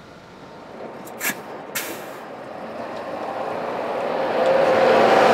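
City bus: two short, sharp air hisses about half a second apart, a little over a second in, then the bus's running noise swells steadily until it is loud near the end.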